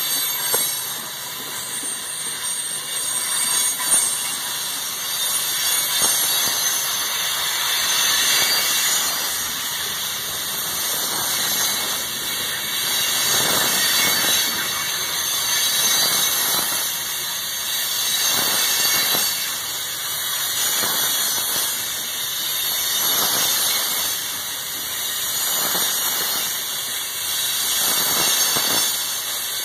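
Freight train cars rolling past close by: a steady high-pitched squeal and hiss of steel wheels on rail, with faint clacks of the wheels, the sound swelling and fading about every two seconds as each car goes by.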